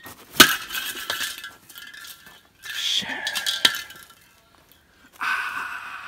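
Aerosol spray paint cans clinking sharply and hissing in three bursts of about a second each.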